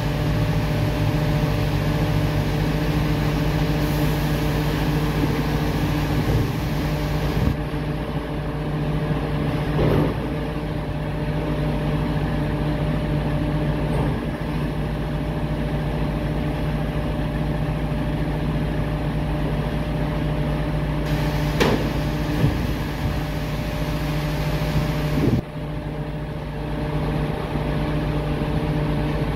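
MAN TGS 26.320 garbage truck's diesel engine running steadily while the truck stands at the bin point, with a few clanks from the rear-loader body.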